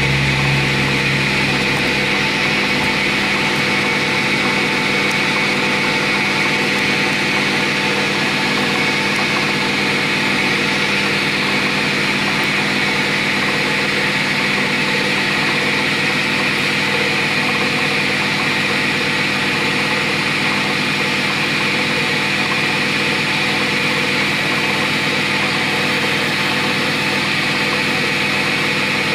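Metal lathe running steadily with a constant machine whine and hum from its motor and gear drive while a tool turns a small steel pin held in the chuck.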